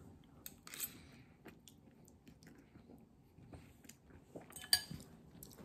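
Faint chewing and mouth noises of a man eating instant noodles, with scattered small clicks. There is a sharper, louder noise about three-quarters of the way through.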